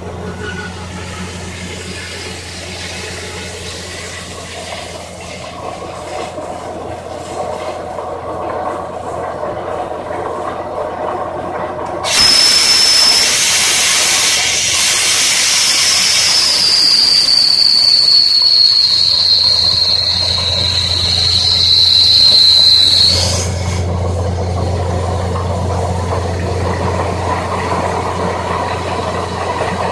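Portable air-driven water-well drilling rig working: its small engine runs with a steady hum. About twelve seconds in, a loud hiss of compressed air blowing from the borehole starts up, carrying a high whistle that slowly falls in pitch, and it cuts off abruptly some eleven seconds later while the engine runs on.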